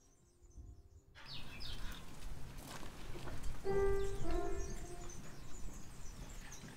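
Soft piano notes, then outdoor background noise with a brief bird chirp about a second in, and a few more piano notes about four seconds in.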